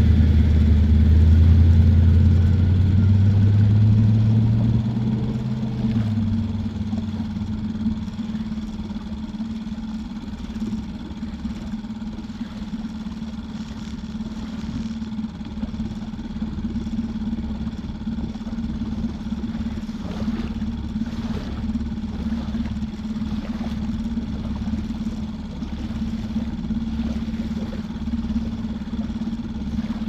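Small gas outboard motor on a Pelican Bass Raider boat running at a steady pitch. A deeper rumble over the first six seconds then drops away.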